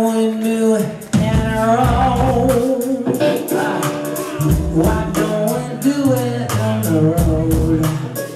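Live blues-rock band playing: a woman sings into a microphone with long, bending notes over electric guitar and drums.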